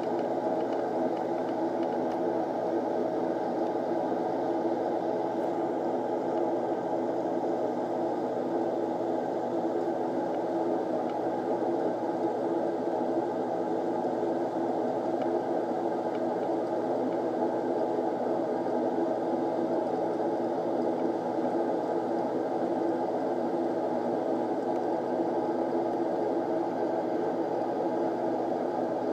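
Steady machine whir with a low hum of several held tones, unchanging in level.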